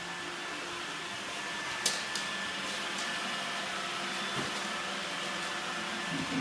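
Robot vacuum cleaner running with a steady whir of its motor and brushes. A single sharp click about two seconds in.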